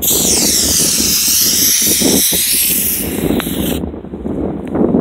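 Aerosol can of spray chalk spraying in one long hiss onto tree bark, cutting off suddenly near the end.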